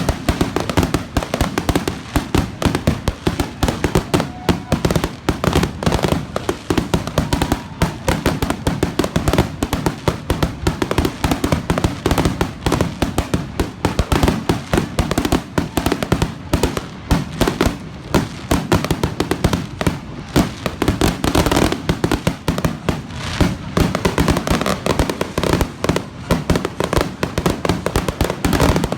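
Fireworks going off in a dense, continuous barrage of sharp bangs and crackles, many a second, with no let-up.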